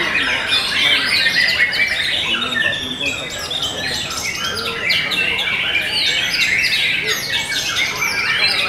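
White-rumped shamas (murai batu) singing without a break: a dense song of overlapping clear whistles, sweeping notes and rapid trills, with several caged contest birds singing at once.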